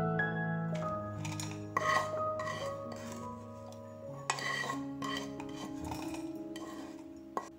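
Fried shallots, garlic and a dried red chilli being scraped out of a nonstick frying pan into a steel mixer-grinder jar: a series of scrapes and metal clinks, over soft background music.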